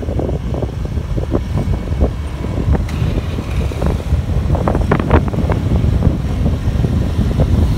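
Wind buffeting the microphone of a moving motor scooter: a heavy low rumble with irregular gusty pops, over the scooter's running engine.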